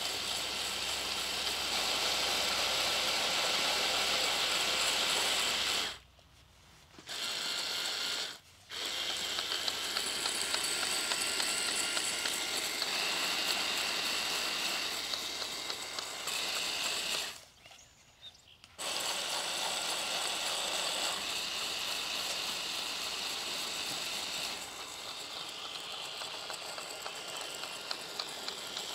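Small electric gear motors of 3D-printed screw-drive robot tanks whining and grinding as they drive over snow. The sound cuts out three times: for about a second some six seconds in, briefly a couple of seconds later, and again for over a second a little past the middle.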